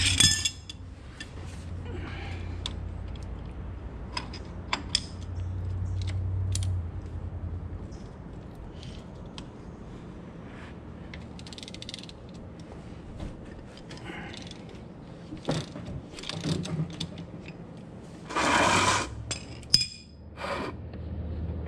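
Scattered metal clicks and taps of a ratchet and wrench working the drain plug out of a front differential. Near the end there is a noisy burst about a second long.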